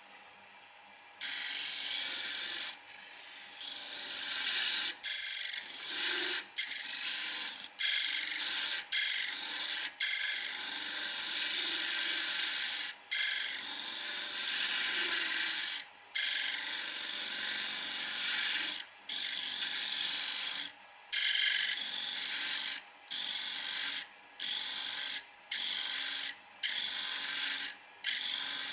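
Homemade woodturning chisel cutting into wood turning on a wood lathe: a scraping hiss that starts about a second in, and stops and restarts in repeated passes, more often towards the end as the tool is lifted off and put back.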